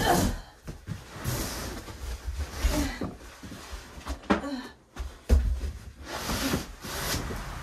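Handling noise as upholstered lounge-chair pieces and their cardboard box are moved about: several drawn-out bursts of rustling hiss and a few dull thumps.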